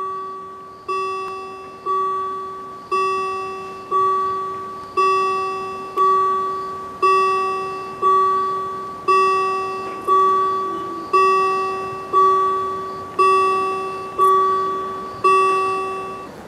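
German level-crossing warning bell striking about once a second, each ding ringing out and fading before the next. It sounds while the barriers come down and stops near the end, once they are fully lowered.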